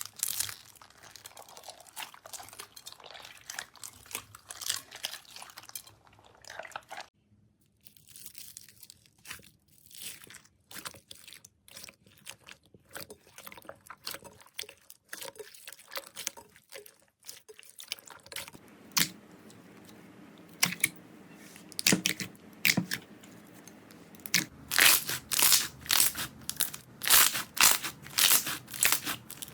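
Crunchy slime squeezed and pressed by hand, giving dense crackling and crunching that stops and starts. Near the end it becomes a regular series of loud crunches, about two a second.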